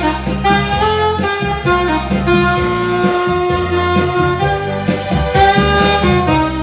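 Instrumental jazz in a cha-cha rhythm: a saxophone plays the melody, holding one long note through the middle, over bass and percussion.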